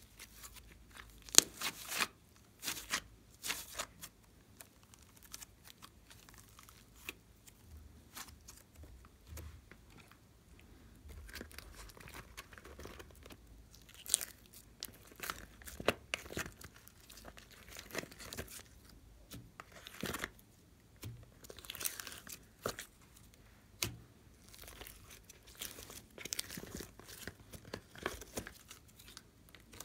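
Hands stretching, squeezing and poking glossy slime: irregular sticky crackles, pops and squelches.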